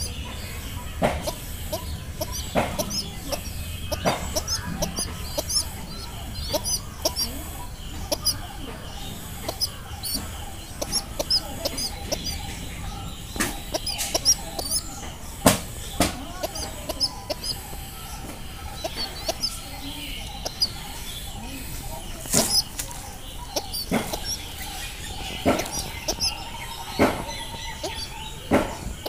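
Two pigeon squabs on the ground: scattered sharp taps and brief wing flutters, with faint high chirping throughout.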